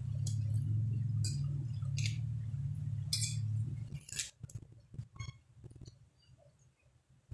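Eating sounds: sharp clinks and crunches about once a second over a low steady hum, which stops about four seconds in, leaving only faint small clicks.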